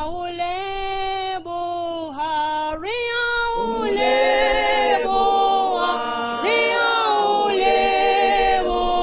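Choir singing unaccompanied in harmony, in long held notes; lower voices join about three and a half seconds in and it grows louder.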